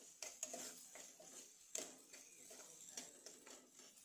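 A steel spoon stirring diced onions and potatoes in a nonstick pan: faint, irregular scrapes and taps of the spoon against the pan.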